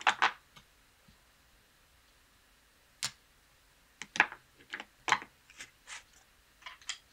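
Playing cards and casino chips being handled on a felt blackjack table as a lost hand is cleared. Short sharp clicks and slaps come twice at the start, once about three seconds in, and then in a quick irregular run near the end.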